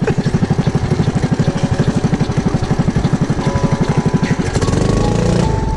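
Tuned 200 cc single-cylinder kart engine on a home-built go-kart running with a steady, rapid beat, then revving higher about four and a half seconds in as the kart drives off.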